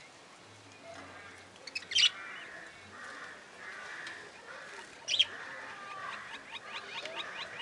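A flock of budgerigars chattering and warbling, with two loud sharp squawks about two and five seconds in and a quick run of short chirps near the end.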